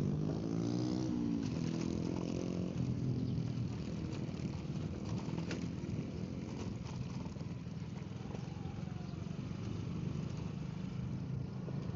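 Motorcycle engine running on the move, its pitch climbing in the first couple of seconds and then settling into a steady drone, with wind noise on the microphone.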